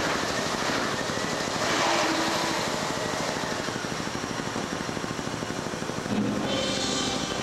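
Live noise-art performance: a dense, rough wall of amplified electronic noise with a fast flutter. A tone slides down in the first few seconds, and a brighter hissing layer comes in about six seconds in.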